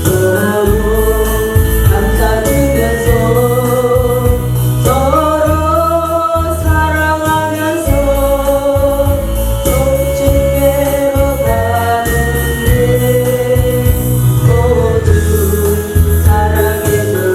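A woman singing a Korean gospel praise song, holding long sustained notes, over a steady instrumental accompaniment with a strong bass.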